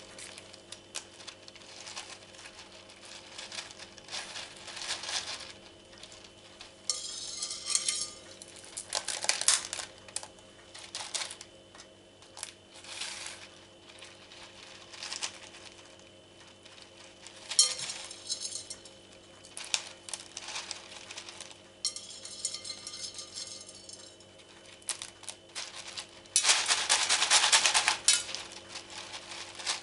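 LECA clay pebbles clinking and rattling as they are poured and shifted into a clear plastic cup around an orchid's roots, in scattered bursts, with a longer, louder pour near the end.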